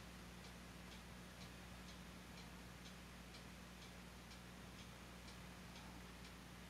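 Near silence with a faint, even ticking about twice a second over a low steady hum.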